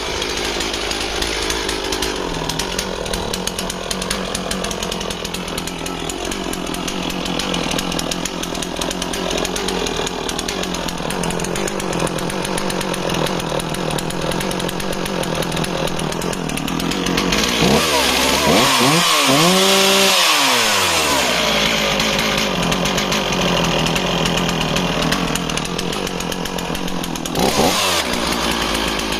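Stihl 044 two-stroke chainsaw running at full throttle while cutting through thick wood, its engine note wavering under load. About two-thirds of the way through, the revs drop sharply and climb back up.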